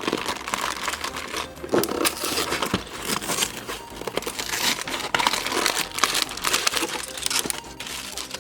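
Plastic parts bags and packaging of a LEGO set crinkling and crackling as they are handled and torn open, with many small clicks throughout.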